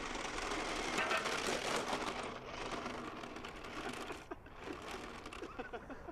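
Battery-powered 1:9 scale radio-controlled Mini Cooper toy car driving on tarmac: its small electric motor and gears whirring, loudest about a second in and easing off toward the end.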